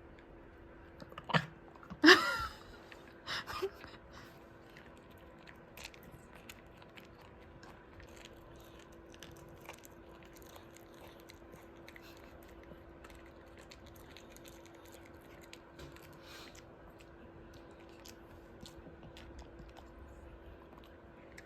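Dachshund chewing a treat: a run of small crunching, smacking clicks. Near the start come a few louder knocks, the loudest about two seconds in with a brief pitched squeal.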